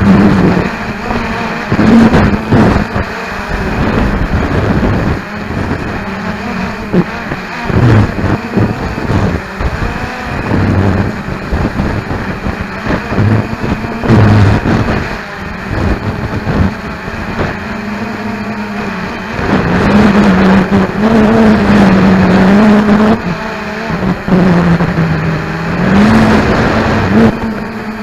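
Cheerson CX-20 quadcopter's four brushless motors and propellers whining as heard from the onboard keychain camera, the pitch rising and falling as the motors change speed, over rough buffeting of 20 mph wind on the microphone.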